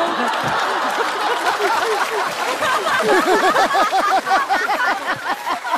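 Studio audience laughing loudly together, with clapping mixed in, easing off a little toward the end.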